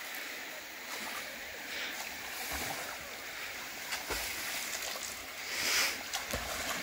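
Water splashing and sloshing as a swimmer kicks through a river pool, swelling louder for a moment near the end.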